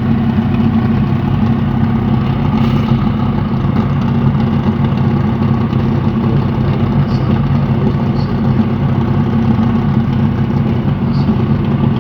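Ex-Stock Car Chevrolet Opala's naturally aspirated 4.1-litre straight-six racing engine idling loud and steady, without revs.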